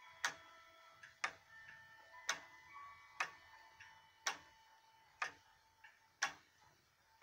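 Ticking of the running wooden movement of a circa-1790 Gideon Roberts Connecticut tall case clock, its escapement beating about once a second.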